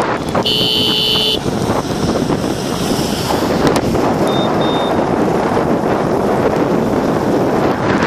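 Wind rushing over the microphone from a moving vehicle, with a steady road-and-wind noise. A vehicle horn toots for about a second near the start, and two short high beeps follow about four seconds in.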